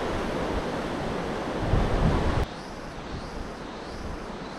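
Wind buffeting the microphone: a rushing noise with heavy low rumbling gusts. About two and a half seconds in it cuts off suddenly to a quieter outdoor hiss with faint high rising notes.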